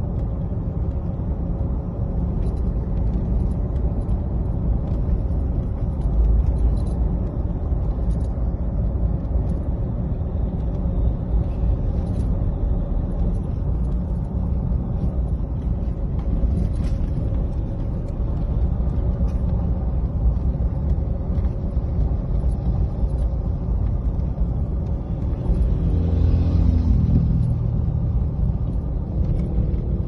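Road and engine noise heard from inside a moving vehicle: a steady low rumble, with a pitched drone that falls in pitch about 26 seconds in.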